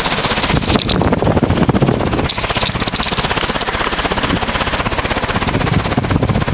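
HRS 56-inch industrial ceiling fan with a cast-iron spinner motor running on high speed, its strong airflow buffeting the microphone into a loud, rough, rapidly pulsing rush. A few sharp clicks come about a second in and again around three seconds in.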